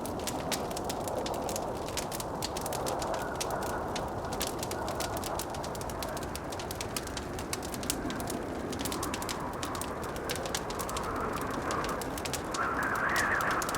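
Wood fire crackling in a fireplace, with frequent sharp pops and snaps, over the steady rush of blizzard wind that swells into a louder gust near the end.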